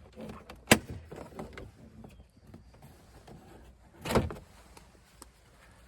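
Plastic door-trim clips snapping loose as a trim piece is pried off a pickup's interior door: a sharp snap about a second in and a second crack near four seconds, with faint handling rustle of plastic between.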